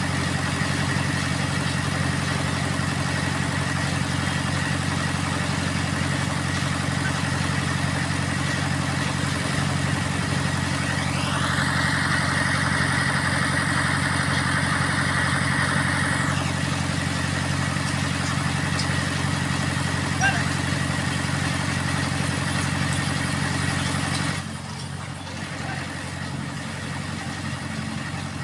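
Indo Power hydra crane's diesel engine running steadily. About eleven seconds in, a high whine rises and holds for about five seconds, then stops. Near the end the engine settles quieter.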